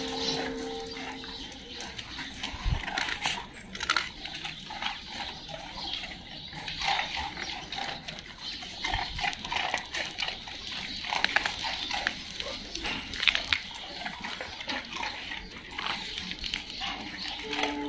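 A pack of dogs eating dry kibble off a tiled floor: a dense, irregular patter of crunching and small clicks as they chew and pick pellets off the tiles. One low thump comes about three seconds in.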